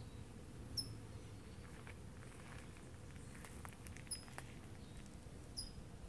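A small bird chirping: three short, high chirps, the first the loudest, spaced a second and a half to three seconds apart, over a steady low background rumble. Faint clicks and rustles in the middle.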